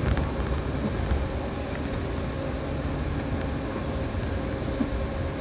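Seibu 4000 series electric train running at speed, heard from inside the passenger car: a steady rumble of wheels on rail with a faint steady hum.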